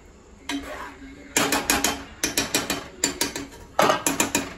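Metal spoon scraping and clinking against the inside of an aluminium pressure cooker while stirring curry. It comes as a quick run of sharp clinks, about four or five a second, starting about a second and a half in.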